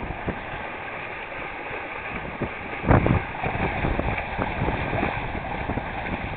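Water rushing and splashing along the hulls of a small sailboat moving under sail, with one louder splash about three seconds in.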